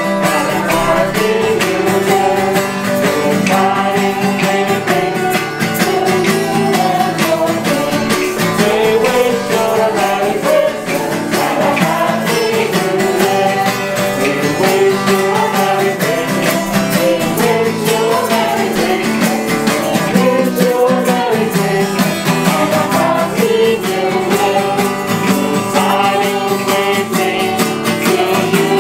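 A small group of carollers singing a Christmas carol together, accompanied by a strummed acoustic guitar.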